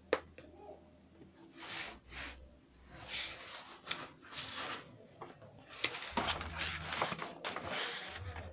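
A pencil drawing a series of scratchy strokes along a metal ruler on kraft paper, with the paper rustling as the ruler is shifted. There is a sharp tap right at the start.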